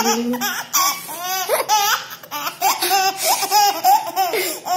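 Toddler laughing hard, in a rapid string of short high-pitched laughs that rise and fall in pitch.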